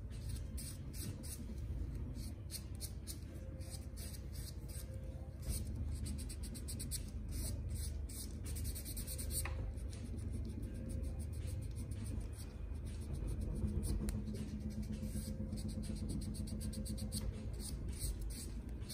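White nail buffer block rubbed back and forth over a toenail, making quick scratchy strokes, several a second, to smooth the nail surface.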